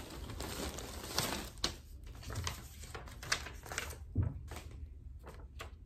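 Paper and plastic packaging being handled: rustling at first, then a scatter of light ticks and taps as a folded paper sheet is opened out.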